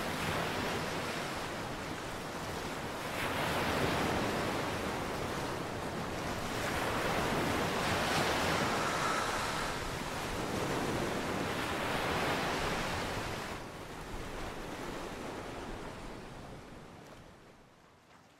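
Waves washing onto the shore, with the surf swelling about every four seconds and fading away over the last few seconds.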